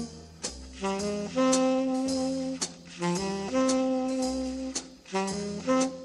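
Jazz film-score instrumental: a saxophone carries the melody in held notes of about half a second to a second each, over a pulsing bass line.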